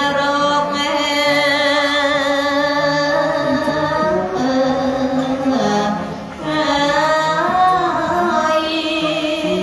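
A woman singing a Khmer Buddhist devotional chant (thor sangvek) solo into a microphone, holding long, drawn-out notes that waver in pitch, with a short break for breath a little past the middle.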